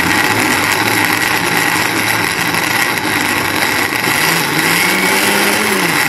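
Electric mixer grinder (mixie) running at full speed, grinding soaked moong dal with milk and wheat flour into a thick batter; the motor switches off abruptly near the end.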